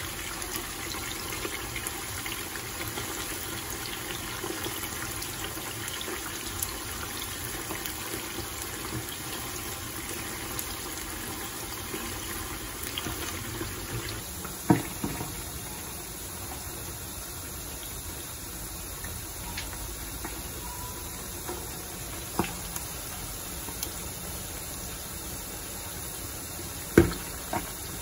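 Whole tamban fish deep-frying in a pan of hot oil: a steady sizzle and bubbling as they are slow-fried until the bones turn crisp. Chopsticks knock sharply against the pan about halfway through, and there is another sharp knock near the end.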